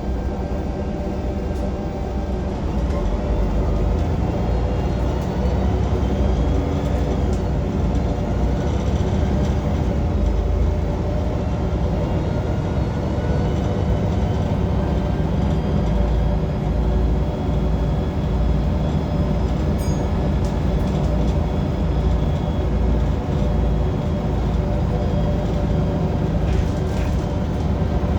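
Transperth bus TP1230 heard from on board while moving: a loud, deep rumble from the bus with steady droning tones over it, the pitch of some faint whines rising over the first several seconds as it picks up speed. A couple of short clicks or rattles come near the end.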